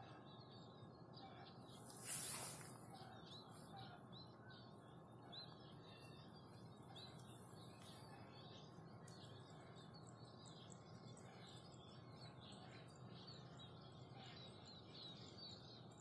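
Faint, rapid high chirping of small birds throughout, over a low steady background hum. About two seconds in, a brief louder hiss.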